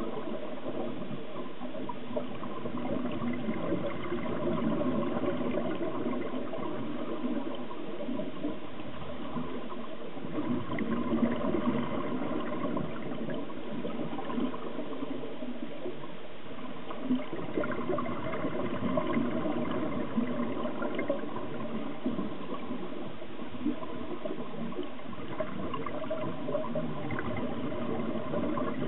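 Scuba regulator exhaust bubbles heard underwater: a steady bubbling, gurgling rush of air escaping into the water.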